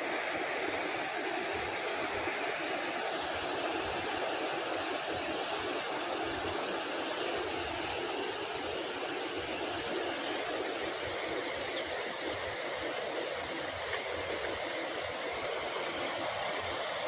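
Steady rush of turbulent water at a waterfall, an even noise that does not change.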